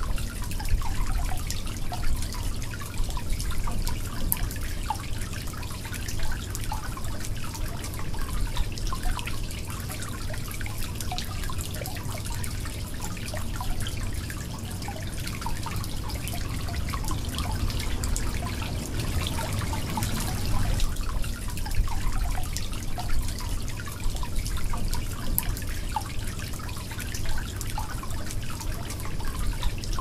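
Shallow stream trickling and babbling over a pebble bed close to the microphone: a steady flow with many small plinks and splashes.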